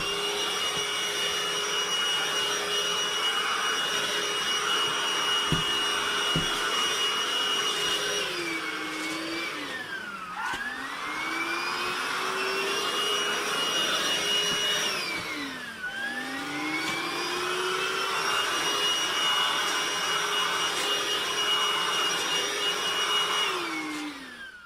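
Hoover cordless stick vacuum cleaner running, a steady high motor whine over rushing air. Twice the pitch sags as the motor slows, then climbs back as it spins up again. Near the end it winds down and stops.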